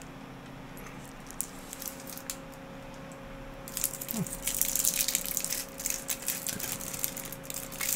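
Foil candy wrapper being unwrapped by hand: a few faint clicks, then a dense crinkling crackle from about halfway through.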